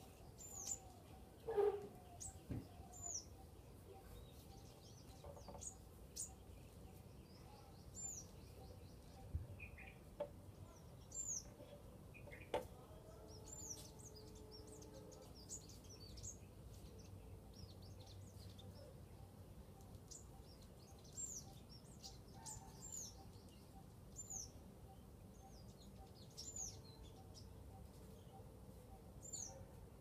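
Small birds chirping off and on: short, high chirps that drop in pitch, repeated every second or two.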